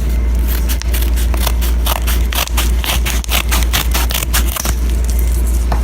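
Mail packaging being handled and opened by hand: a run of crinkling, crackling and scraping, over a steady low hum.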